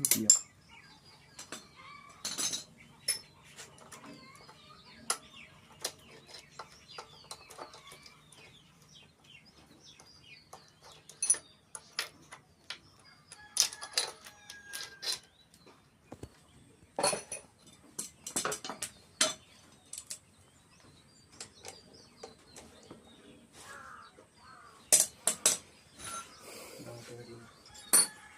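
Hand tools clicking and knocking against metal engine parts at irregular intervals during repair of a Hero Zoom scooter engine, with several louder clanks about a third, a half and near the end of the way through.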